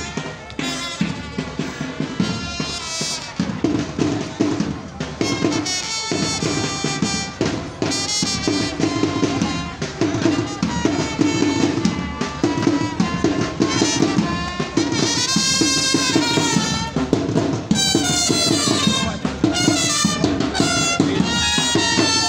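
A live brass-and-drum band playing a march: trumpets carry a moving melody over a steady beat of snare and bass drums.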